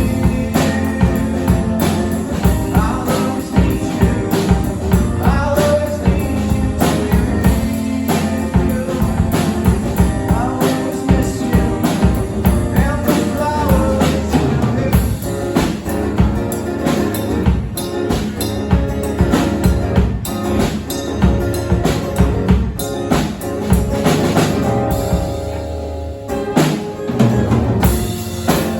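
Live guitar and drum kit playing a rock song together, with steady drum hits throughout.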